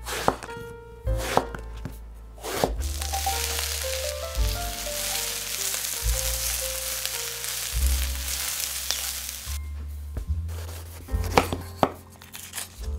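Chef's knife chopping through aubergine onto a wooden cutting board, a few sharp strokes. About two and a half seconds in, chopped aubergine starts sizzling in hot olive oil in a pot, a steady hiss for about seven seconds. Near the end, knife strokes cutting a bell pepper on the board.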